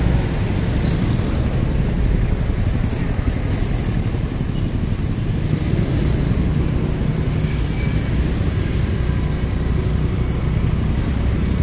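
Steady road-traffic noise: car and motorcycle engines running close by as traffic at a signalled crossroads moves off, with a constant low hum from the recording vehicle.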